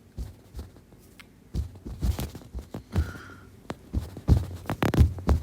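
Irregular low thumps and a few sharp knocks, sparse at first and coming thicker from about halfway through.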